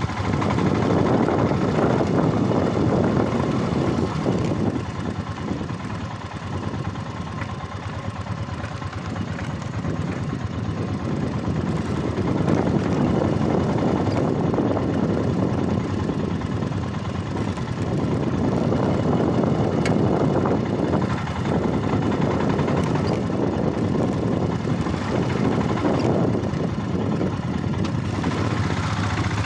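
Motorcycle engine running on a ride, dropping in level for a few seconds about a fifth of the way in and then building back up.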